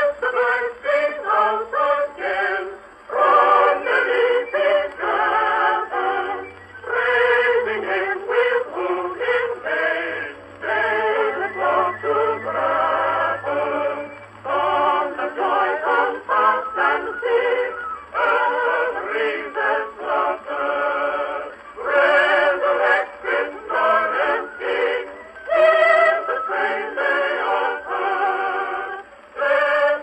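An Edison Blue Amberol cylinder record played through a horn phonograph: voices singing a carol in phrases with short breaks. The sound is thin and narrow, with no deep bass and no high treble, as with an old acoustic recording.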